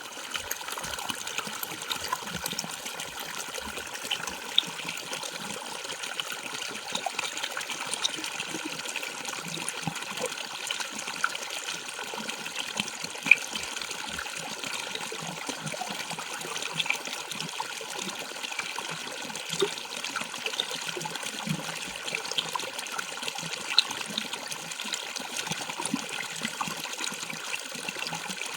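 Falling water splashing steadily: a continuous rush with many small splashes and drips in it. One sharper splash stands out about 13 seconds in.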